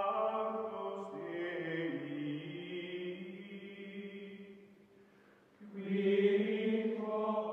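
Outro music of choir-like chanting voices holding long sustained chords. The sound fades away about five seconds in, and a new held chord starts a moment later.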